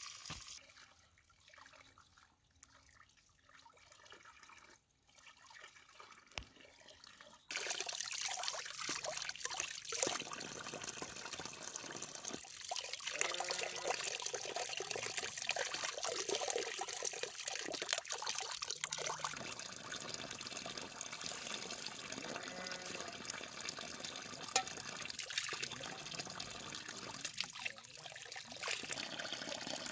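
Water pouring from a pipe and splashing over stones into a shallow stream, a steady rushing trickle. About seven seconds in it suddenly becomes much louder and stays steady after that.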